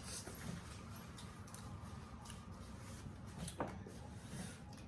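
Faint eating sounds as pork neckbones are chewed: scattered small wet clicks and smacks, over a steady low hum.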